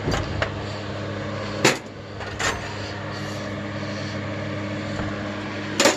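A few sharp metal clanks from old tools and scrap metal being handled and dropped, the loudest about two seconds in and near the end, over a steady low hum.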